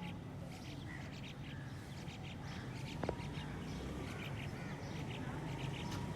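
Birds calling in a rapid run of short, repeated chirps over a steady low rumble, with one sharp click about three seconds in.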